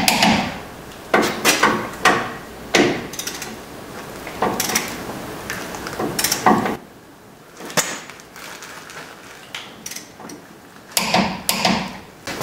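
Torque wrench ratcheting as the front brake caliper bolts are tightened to 55–60 ft-lb: a series of sharp metallic clicks and knocks at irregular spacing, thinning out past the middle and bunching again near the end.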